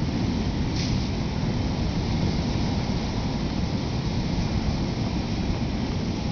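Storm wind buffeting the microphone: a steady, gusty rush of noise, heaviest in the low end.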